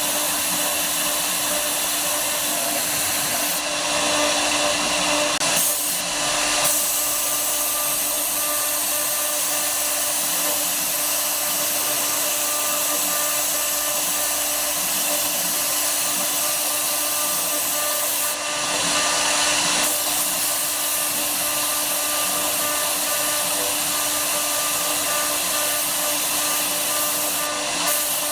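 Woodworking CNC router spindle running steadily as it cuts wood, with a steady whine. It gets briefly louder twice, about four seconds in and again near nineteen seconds.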